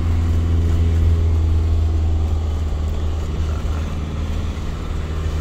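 Camping-car engine running as it drives slowly, heard from inside the cab: a steady low drone whose pitch drops slightly about halfway through.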